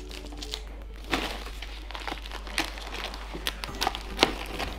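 Thin white plastic packing wrap crinkling and rustling in short irregular crackles as it is pulled and folded back off a boxed NAS unit, with some faint background music.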